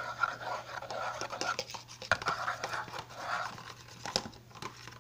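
Butter knife stirring a thick, wet slime mixture in a plastic tub: a repeated rustling, squelching scrape, with a few sharp clicks as the blade knocks the tub's sides, over a steady low electrical hum.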